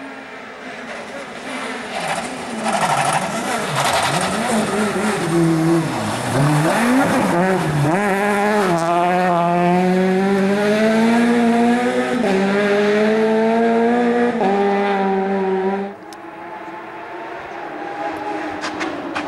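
Rally car engine worked hard at high revs. Its pitch drops low as it slows, then climbs in steps through the gears as it accelerates hard. About 16 seconds in the sound falls away suddenly to a quieter engine.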